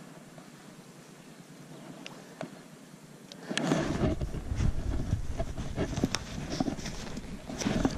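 Tall grass rustling and brushing close to the camera as someone pushes through it on foot, with bumps and low rumble from the movement. Quiet with a few light ticks at first, then much louder from about three and a half seconds in.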